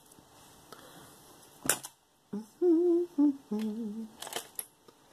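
A woman humming a few short, wavering notes, after a single sharp click about a second and a half in; a couple of light clicks follow near the end.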